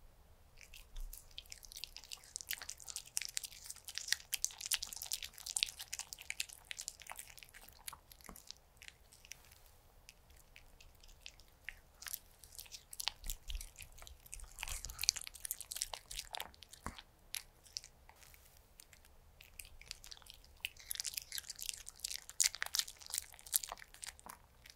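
A Pomeranian chewing and crunching mouthfuls of dog-friendly dakgalbi with cheese, close to the microphone. The wet, crunchy chewing comes in three bouts with short quiet pauses between them.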